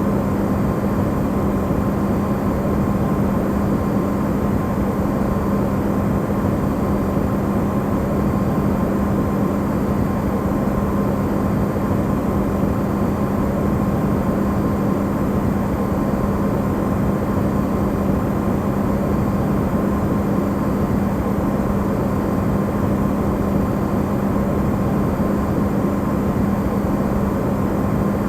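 Amplified Electrolux refrigerator running: a steady, even drone with a constant low hum, used as white noise.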